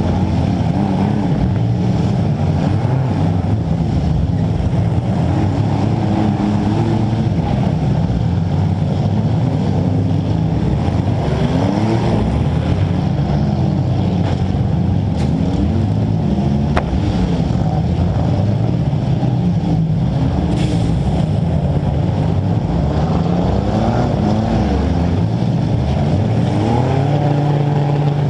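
Compact demolition derby car engines running hard, the pitch rising and falling again and again as they rev. A few short knocks stand out.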